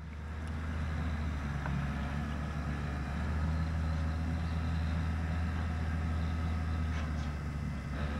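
An engine running steadily: a low, even hum that fades in at the start, with a few faint clicks near the end.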